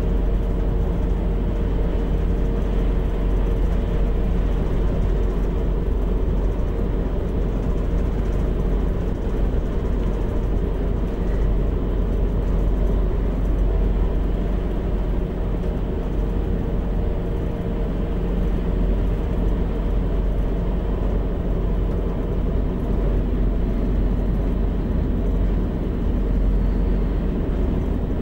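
A DB class 642 Siemens Desiro diesel railcar running at a steady pace, heard from its cab: an even diesel drone with a constant hum over wheel-on-rail rumble.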